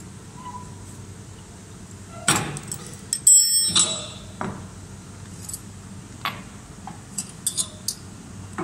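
Steel parts of a high-pressure homogenizer knocking and clinking as its head is taken apart by hand. One loud ringing metal clank comes about three seconds in, followed by a few lighter clicks.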